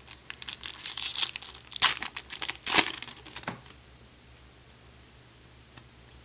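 Foil wrapper of a baseball card pack being torn open and crinkled by hand: a run of crackling and ripping for about three and a half seconds, with two louder rips about halfway through.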